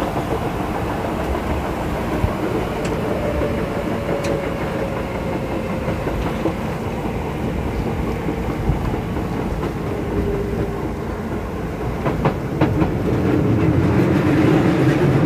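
Keisei 3500 series electric train running, heard aboard: wheels clacking over rail joints while the motor and gear whine slowly falls in pitch as the train slows.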